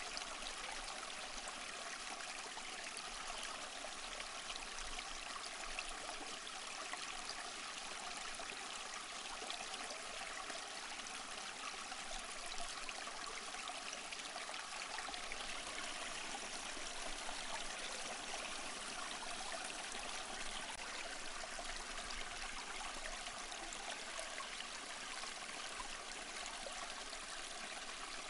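Small stream flowing: a steady rush and splash of water, mostly high and hissy with little deep rumble, unchanging throughout.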